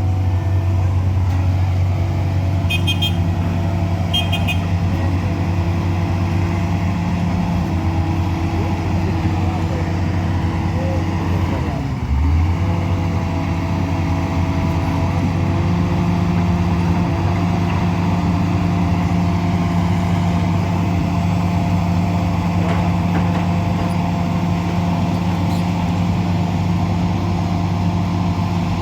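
A motor vehicle engine runs steadily throughout, its pitch dipping briefly and recovering about twelve seconds in. Two short high-pitched beeps sound about three and four seconds in.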